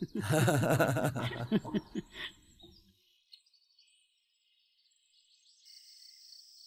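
Brief laughter for the first two seconds, then quiet. From about five and a half seconds in, faint steady chirping of night crickets.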